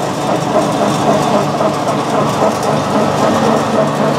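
Small animal-feed pellet mill running, pressing feed into pellets that come out of the chute hot: a steady mechanical noise with a low hum.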